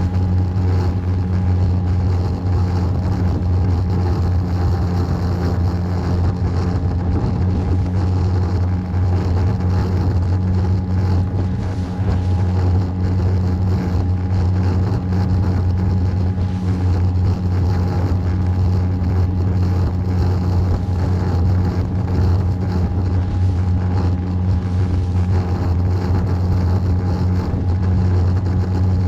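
Small fishing boat's engine running steadily at cruising speed, a constant low hum under the rush of the boat under way.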